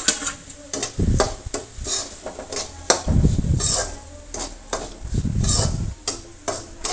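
Metal spatula stirring and scraping dry semolina and gram flour around a metal kadhai, a run of scrapes and knocks against the pan from about a second in, as the semolina is mixed into the hot tempering.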